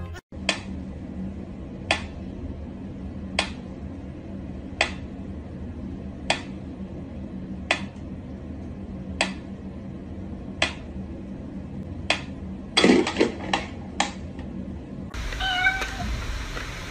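Mechanical pendulum metronome ticking slowly and evenly, about one sharp tick every second and a half. Near the end a quick cluster of louder clicks and knocks breaks in, then a steadier hiss with faint tones takes over.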